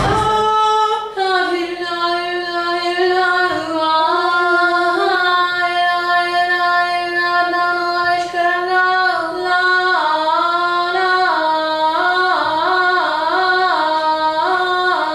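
A single voice singing a slow melodic line in a fairly high register, holding long notes that step up and down. It breaks into quick melismatic runs of notes about two-thirds of the way through.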